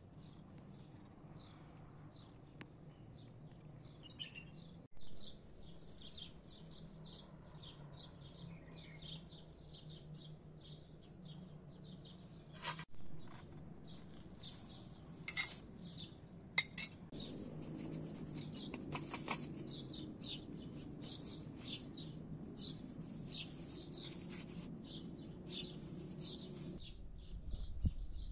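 Small birds chirping in a quick, repeated series throughout. Partway through come a few sharp clinks of a metal spoon against a china plate.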